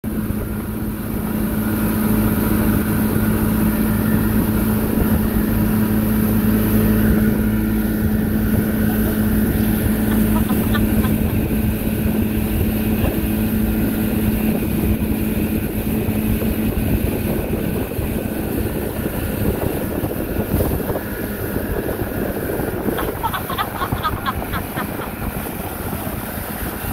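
Outboard motor of a towing motorboat running steadily at speed with an even drone, over the rush of wind and churning wake water. The engine tone weakens somewhat in the last few seconds.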